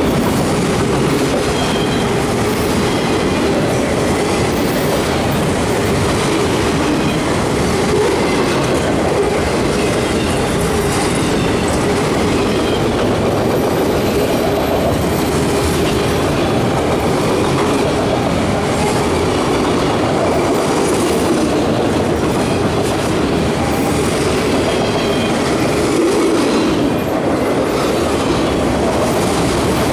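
Freight train of multilevel autorack cars rolling past close by: steady, loud rumble and clatter of steel wheels on rail.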